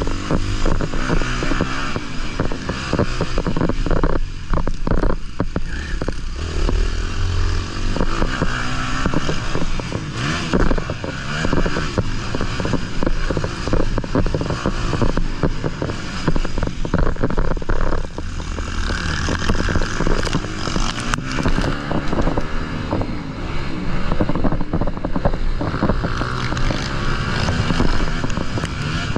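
Honda CR250 motocross bike engine being ridden hard on a dirt track, its pitch rising and falling over and over as the throttle opens and closes. Wind buffets the microphone throughout.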